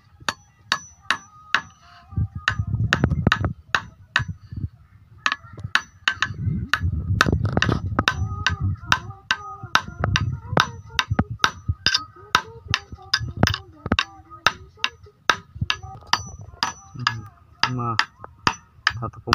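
Claw hammer driving steel nails into a wooden strip: a long run of steady blows, about two or three a second with a short pause about four seconds in, each blow giving a brief metallic ring.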